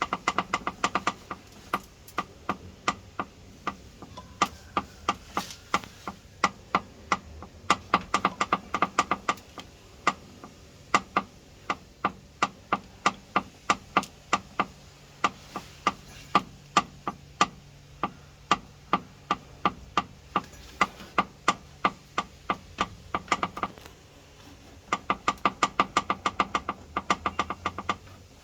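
Top-load washing machine clicking and knocking in a steady rhythm while it washes, the faulty wash-cycle noise under diagnosis. The sharp clicks come about two to three a second, with faster runs of them now and then.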